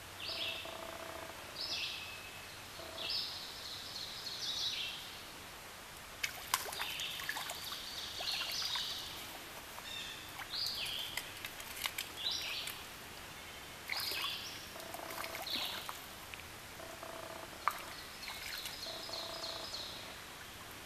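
Birds calling in short, repeated high chirping phrases about every second or two, over the steady hiss of a flowing stream. A few sharp clicks and light splashes come through in the middle.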